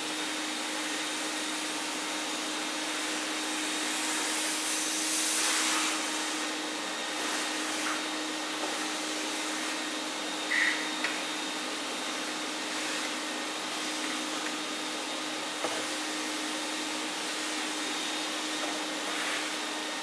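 80-litre, 3200 W three-motor commercial wet and dry vacuum cleaner running steadily with a constant hum, its hose sucking sawdust off a workbench. A few short clicks come partway through.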